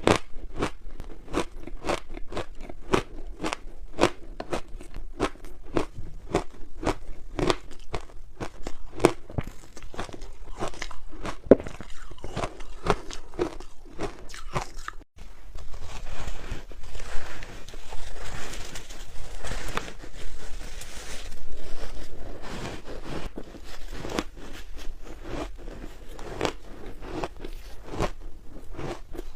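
Ice being bitten and chewed close to the microphone: a rapid run of crisp crunches, several a second. About halfway through there is a brief dropout, then a few seconds of denser, grinding crunching before separate crunches return.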